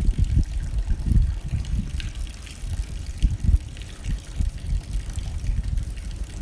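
Rain hitting a window while the wind blows in gusts: an uneven low rumble that swells and dips, under light, scattered ticks of drops.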